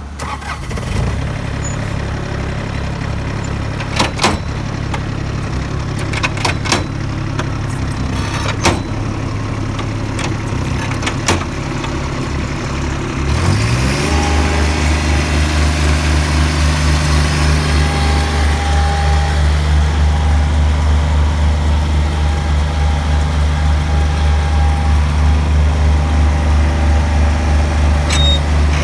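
Bobcat skid-steer loader engine running steadily at low speed, with a few sharp metal clanks. About halfway through it revs up and holds at a higher, louder steady speed.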